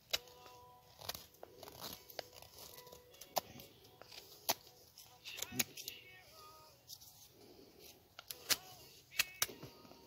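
Mora carving knife shaving and cutting into a dry piece of firewood, a series of irregular sharp scrapes and cuts as the wood is whittled into a spatula.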